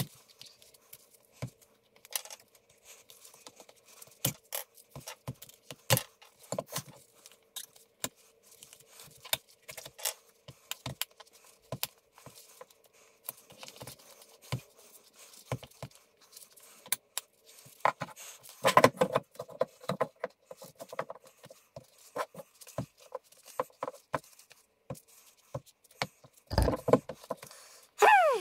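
An 8.5-inch scooter tyre being worked off its wheel rim by gloved hands: irregular clicks, snaps and scrapes of rubber and plastic against the rim, with louder bursts of handling about two-thirds of the way through and near the end. A faint steady hum sits underneath.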